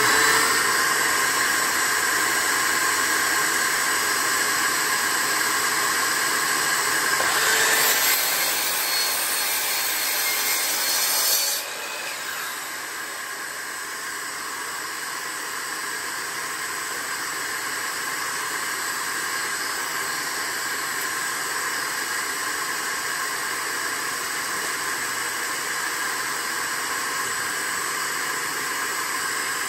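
A DeWalt sliding miter saw runs over the steady noise of a shop vacuum and cuts through a zebrawood board for about four seconds, a third of the way in. The saw cuts off suddenly after that, leaving the vacuum's steady hiss.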